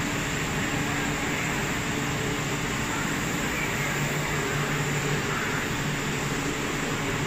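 Steady mechanical hum and hiss of a ton bag packing machine line running, even throughout with no distinct knocks.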